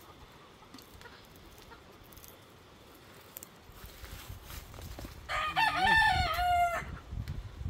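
A rooster crows once: a single loud crow of about a second and a half, coming about five seconds in. A low rumble sits underneath from about halfway through.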